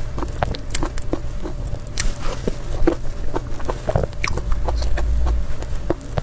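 Close-miked wet mouth sounds of eating soft whipped-cream cake: irregular lip smacks and sticky clicks, several a second, over a low hum.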